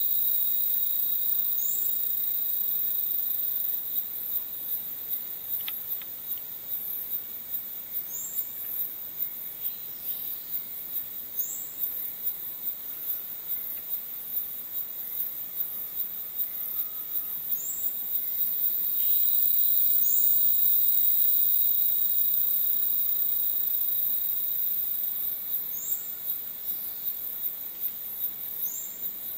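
Tropical rainforest insect chorus: a dense, high, shimmering buzz with a steady whine beneath it that swells louder about two-thirds of the way through, while a short high chirp repeats every two to three seconds.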